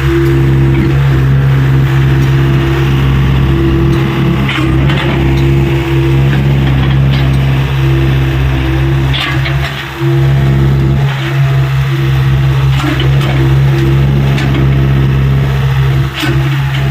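Tata Hitachi EX70 excavator's diesel engine running steadily under working load, with a few short knocks along the way.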